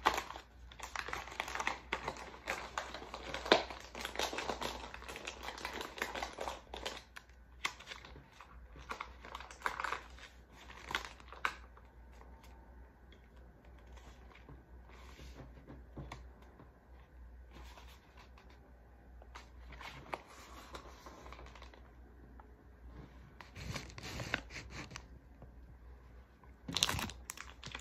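Crinkling and rustling of MRE packaging, a cardboard carton and plastic pouch, being handled. It is busiest in the first dozen seconds, with one sharp crackle about three and a half seconds in, then goes sparse and faint before picking up again near the end.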